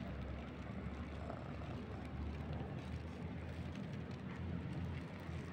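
Steady low outdoor background rumble with a faint hum, without distinct events.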